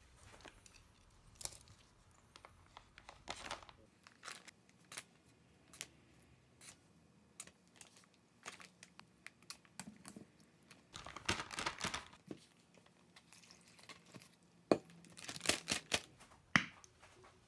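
Plastic zipper storage bag crinkling and rustling as marinated vegetables and fish are dropped into it with chopsticks, with scattered light clicks of wooden chopsticks on a steel bowl. The bag's crinkling comes in two longer bursts, about two-thirds of the way through and again near the end.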